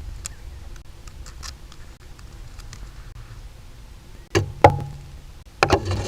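Griffon vulture's beak knocking and pecking at the nest camera over a low steady rumble. There are two sharp knocks about four seconds in, then a rapid cluster of knocks near the end.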